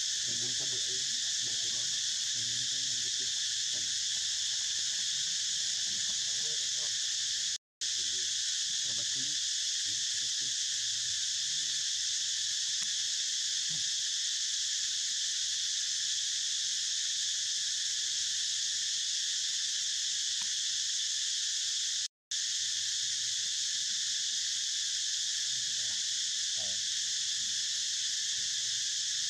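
Steady, high-pitched drone of an insect chorus, cutting out briefly twice, about a quarter of the way in and about three quarters through.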